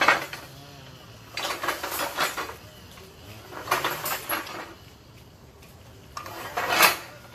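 Metal gym equipment clanking and rattling in four bursts about two seconds apart.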